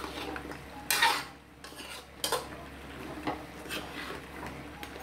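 A metal ladle scraping and knocking against a wok while stirring a thick stew of chicken gizzards and potatoes, in separate strokes, the loudest about a second in.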